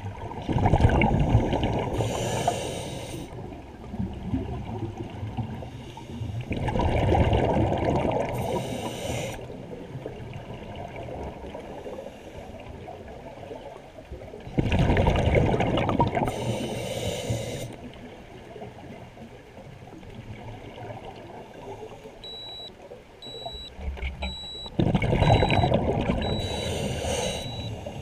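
A scuba diver's exhaled breath bubbling from the regulator underwater: four bursts of bubbling several seconds apart, each lasting two to three seconds. Near the end a short, high electronic beep repeats in quick succession.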